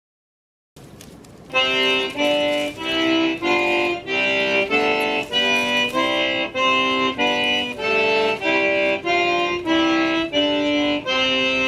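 Accordion music, a lively tune of chords changing about twice a second, starting about a second and a half in and settling on a long held chord near the end.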